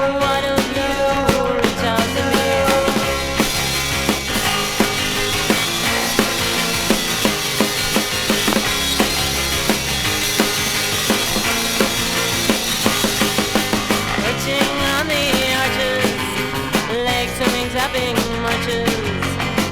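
1990s garage rock band playing from a 7-inch vinyl record: drum kit, bass and electric guitar with a steady beat.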